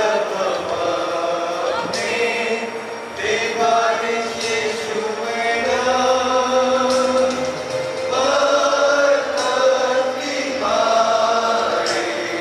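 Church congregation singing a hymn together, line by line with short breaks between phrases.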